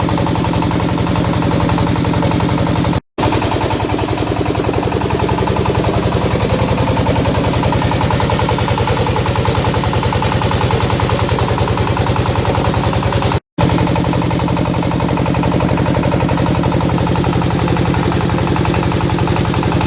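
Pulley-driven wood pellet press machine running steadily, with a fast even clatter over a steady drone from its drive. The sound breaks off for an instant twice.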